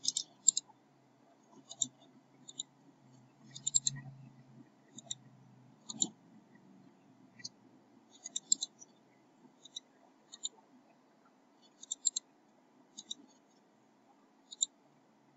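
Computer mouse buttons clicking: sharp single clicks and quick double-clicks at irregular intervals, roughly one a second, over a faint low hum.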